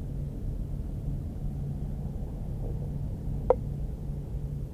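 Steady low background rumble while the rifle is held on target, with one short click about three and a half seconds in. The sharp report of a .30-calibre FX Impact Compact PCP air rifle shot comes right at the very end.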